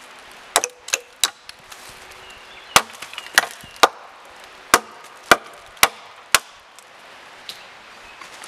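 A blade chopping into the trunk of a small standing tree: sharp strokes of metal biting wood, three in quick succession, then after a short pause seven more at a steady rhythm about half a second apart.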